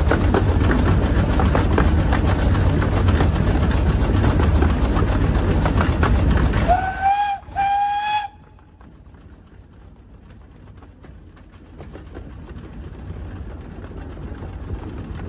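A 15-inch-gauge miniature steam locomotive running, heard from the footplate with heavy wind buffeting on the microphone; about seven seconds in its whistle gives two short toots. Then the sound drops suddenly to a quieter clatter of the train rolling along the track, building slightly near the end.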